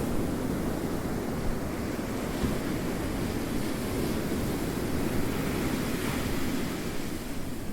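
Ocean waves rolling in and washing over the shore in a continuous surf, swelling brighter about six seconds in and easing off near the end.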